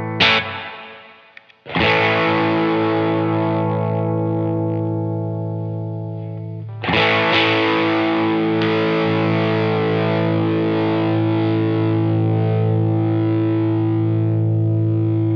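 Electric guitar chords played through the CLE-304 optical compressor with an LPD Fifty5 pedal in its loop. A short chord at the start is followed by two chords left to ring with long, even sustain, the second about seven seconds in.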